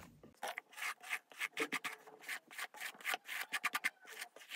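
Quick, irregular rubbing strokes of long hair being brushed and handled close to the microphone, about four a second, hurried by sped-up footage.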